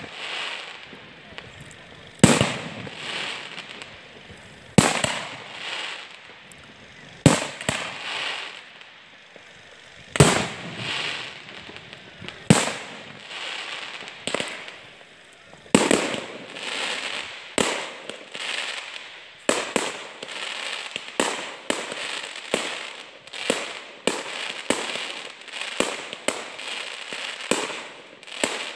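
Fireworks display: shells bursting with sharp bangs, each followed by a crackling tail. The bangs come about every two and a half seconds at first, then speed up to roughly one a second from about halfway.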